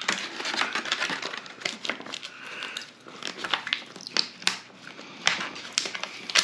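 Clear plastic packaging crinkling and crackling as it is pulled and twisted by hand to free a small magnet, with many irregular sharp clicks.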